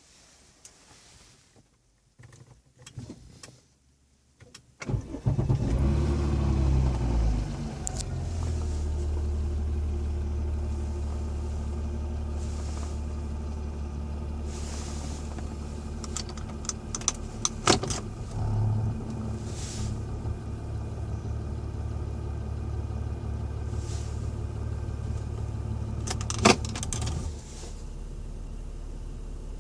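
A 2007 Volvo S80 3.2's engine being started: a few light clicks, then about five seconds in it catches with a brief rev that settles within a couple of seconds into a steady idle with a low hum. A few sharp clicks come during the idle, and near the end the sound drops to a quieter, lower hum.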